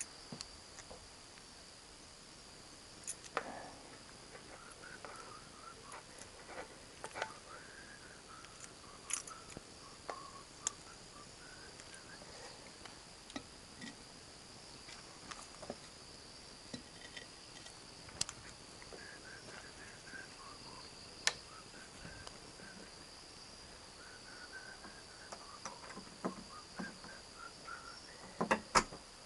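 Night insects chirring in a steady high-pitched drone, with scattered sharp clicks and knocks.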